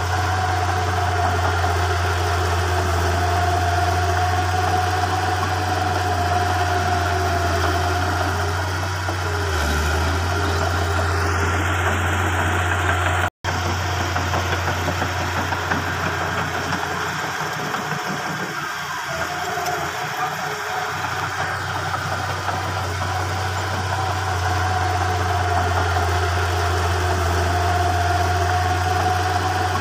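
Crawler bulldozer's diesel engine running steadily, cutting out for an instant about halfway through.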